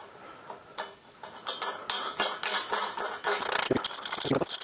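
Small steel hardware clinking and tapping against a steel beam as a bolt and washer are fitted by hand: scattered sharp clicks from about a second in, growing denser, with a brief metallic ring near the end.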